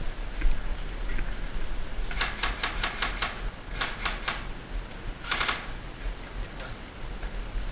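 Airsoft rifle firing shots in quick runs: sharp clicks about six a second, in three short strings, over a low rumble.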